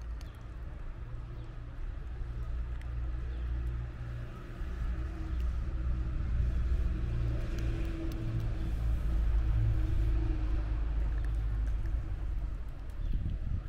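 Low rumble of a motor vehicle engine, swelling over several seconds to its loudest about nine to ten seconds in and easing slightly near the end.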